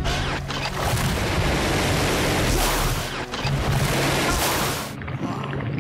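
Cartoon sound effects of a large arm-mounted blaster cannon firing a big ball-shaped blast: a long, loud rushing boom that eases off about five seconds in.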